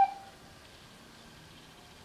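Sony Aibo ERS-210 robot dog's electronic startup melody ending on a held note that cuts off within the first fraction of a second, followed by faint quiet tones.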